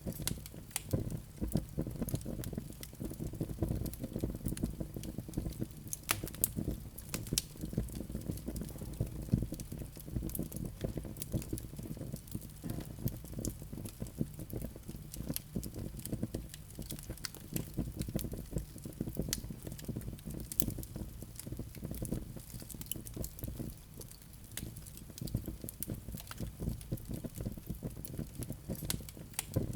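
Wood fire crackling: many small sharp irregular pops and snaps over a steady low rumble of burning logs.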